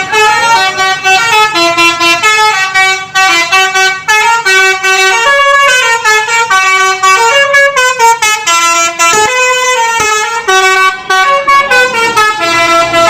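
Basuri telolet bus horn, a multi-tone musical air horn, playing a loud, fast tune of stepped notes that change a few times a second.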